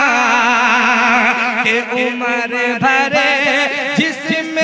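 A solo male voice singing a line of an Urdu sehra into a microphone, drawing out long, ornamented notes that waver up and down in pitch, with short breaks between phrases in the second half.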